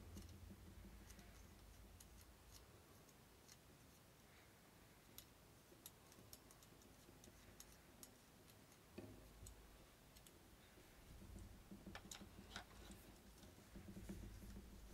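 Near silence with scattered faint clicks and ticks, a few sharper ones about twelve seconds in, from small gun parts and tools being handled during assembly.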